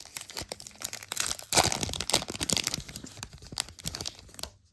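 Foil trading-card pack being torn open and crinkled by hand: irregular crackling and tearing, loudest in the middle, fading out near the end.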